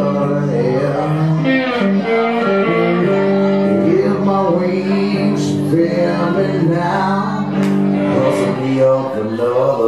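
Live blues song: a hollow-body electric guitar played with a man singing over it.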